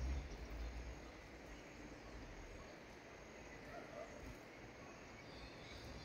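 Faint outdoor ambience: a low wind rumble on the microphone in the first second, a steady high insect drone, and faint high calls near the end.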